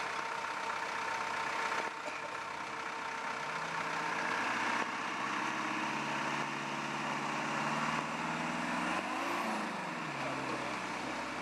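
Land Rover Series III engine running at a low, steady speed, revved up briefly about nine seconds in, then dropping back.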